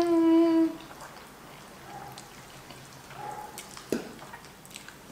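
A woman's steady hummed "mmm" of pleasure through a mouthful of pasta, held for about a second at the start. Then faint chewing with a few soft mouth clicks.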